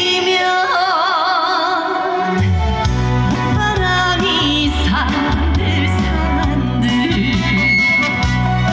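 Trot song: a woman's voice holds a long note with wide vibrato over the backing track, then the bass and drums come in strongly about two and a half seconds in.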